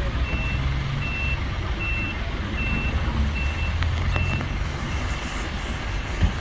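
Reversing beeper on a Mercedes-Benz Sprinter ambulance, a single high tone beeping a little more than once a second, about six times, then stopping a little past halfway. Under it runs the low rumble of idling diesel engines, with one short thump near the end.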